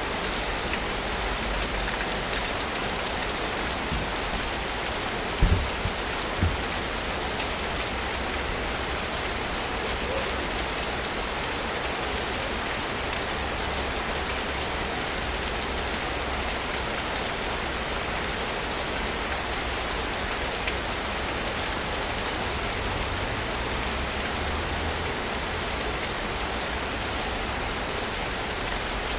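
Steady rain falling in a city, an even hiss of drops with a low rumble underneath. Two short low thumps come at about five and six seconds in.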